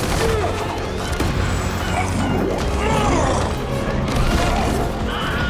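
Action-film fight-scene soundtrack: dramatic music under crashes and impacts, with brief voices.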